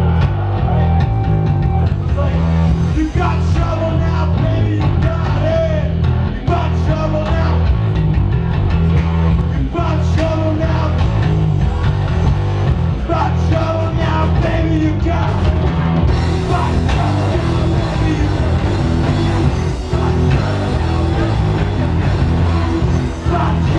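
Live heavy metal band playing loud: distorted electric guitars, bass guitar and drums with a singer's voice in short lines over them. The low end is heavy and constant, and the high end opens up about two-thirds of the way through.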